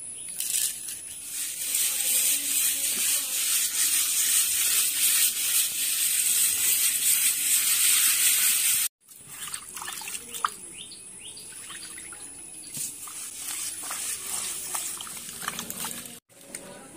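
Hands rubbing sardines with coarse rock salt against the inside of a pot. A loud, steady gritty scraping hiss comes first. After a break about nine seconds in, it turns quieter, with separate short rubbing strokes.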